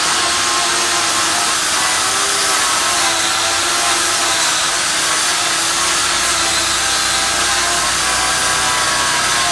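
A power tool grinding steadily, its motor pitch wavering slightly.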